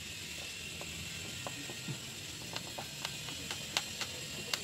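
Hand screwdriver driving a black wood screw into a wooden stool frame: a run of small, irregular clicks and ticks as the blade turns in the screw head, over a faint steady hiss.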